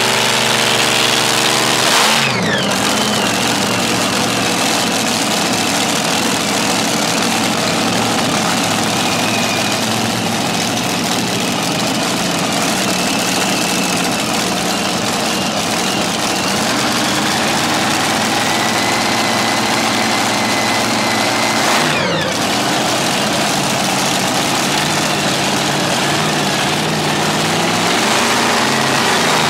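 Supercharged V8 engines of a modified pulling tractor running loudly at a warm-up idle, the pitch shifting a few times as the throttle is worked by hand.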